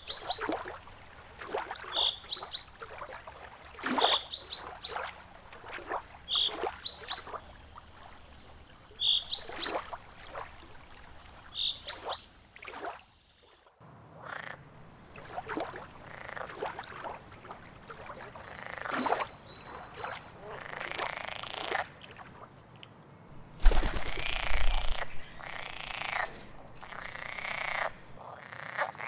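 A chorus of frogs croaking in repeated rasping bursts, with a short high note recurring about every two seconds in the first half. A brief low rumble comes about two-thirds of the way through.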